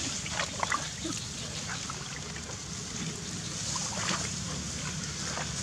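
Light splashing and trickling of shallow pond water as a baby macaque moves in it, with a steady low rumble underneath.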